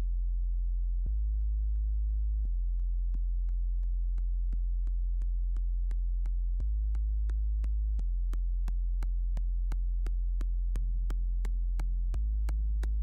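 Electronic music: a deep synthesizer bass drone that shifts pitch every few seconds, under a steady ticking pulse of about three clicks a second that fades in and grows brighter.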